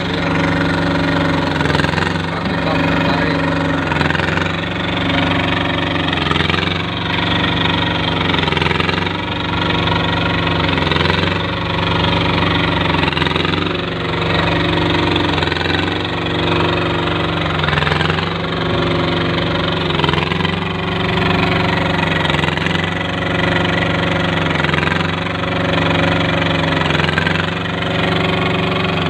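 Small engine of a curb-stone forming machine running steadily, its pitch dipping briefly about every two seconds.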